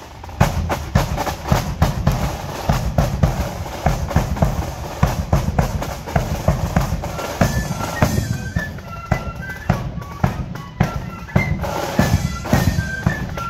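A marching flute band playing: bass and snare drums strike up loudly just after the start and beat a steady march, and the flutes come in with a melody a little past halfway.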